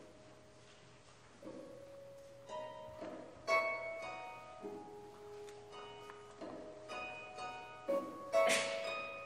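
Concert harp played solo: single plucked notes and chords that ring on, a new one every second or so after a quiet opening moment, with two louder, brighter chords, one about three and a half seconds in and one near the end.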